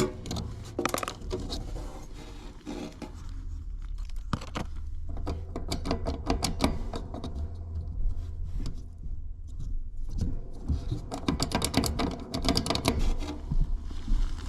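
Irregular metallic clicks, taps and scrapes of tools and parts being handled while a heat pump's heat kit panel is opened to get at its contactor, over a steady low hum.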